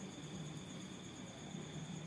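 Steady high-pitched insect trilling, one strand breaking off and resuming, over a low hum.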